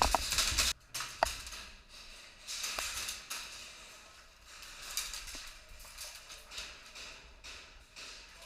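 A Tokyo Marui Hi-Capa gas blowback airsoft pistol firing a few quick shots in the first second, then one more shot, followed by softer irregular scuffing noise.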